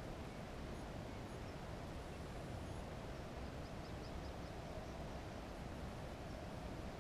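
Steady, faint outdoor background noise with distant high-pitched bird calls: scattered single notes, and a quick run of short notes about halfway through.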